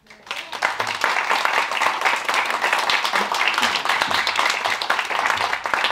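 An audience applauding, welcoming a speaker who has just been introduced. The applause builds up within the first half second and then holds steady.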